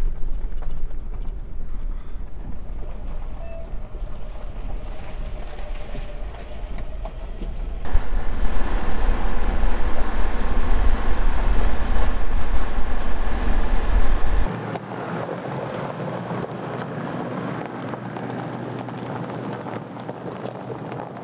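Hyundai Terracan 4x4 driving uphill: a steady deep rumble of engine and tyres with wind noise. About eight seconds in the sound turns suddenly louder and hissier, and about fourteen seconds in the deep rumble suddenly drops away, leaving lighter road and wind noise.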